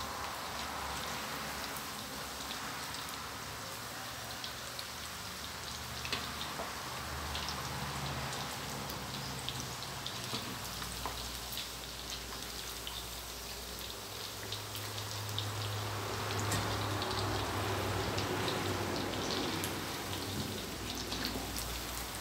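Isan sausages (sai krok Isan) deep-frying in hot oil in a steel wok: a steady sizzle full of small crackles and pops as the sausages crisp. A low hum comes in past the middle for several seconds.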